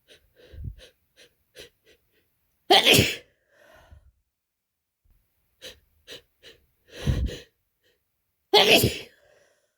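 A person with a heavy, congested head cold sneezing wetly about three times, with quick sniffles and catching breaths between the sneezes; the loudest sneezes come about three seconds in and near the end.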